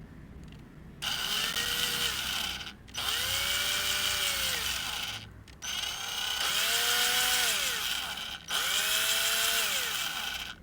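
Power screwdriver run in four bursts, its motor whine rising as it spins up and falling as it stops each time, while screws are taken out of a microwave oven's casing.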